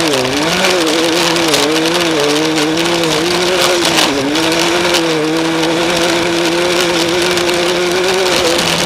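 Off-road race vehicle's engine running hard at high revs under a rush of wind and terrain noise. Its pitch wavers up and down for the first few seconds, drops briefly about four seconds in, then holds nearly steady.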